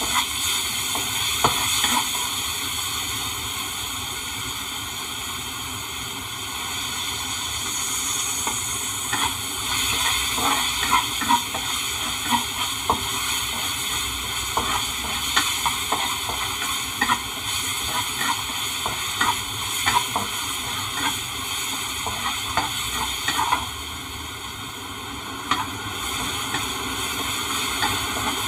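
Chopped chilli and aromatics sizzling in oil in a stainless-steel honeycomb-textured wok, stirred and scraped with a plastic spatula that knocks against the pan in frequent irregular clicks.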